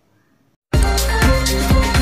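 Near silence, then loud music with a strong beat cuts in suddenly under a second in.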